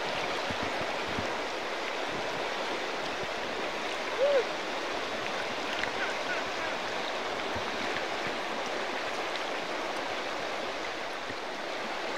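Shallow river riffles rushing steadily over rocks around a wading angler's legs. About four seconds in, a short tone rises and falls over it.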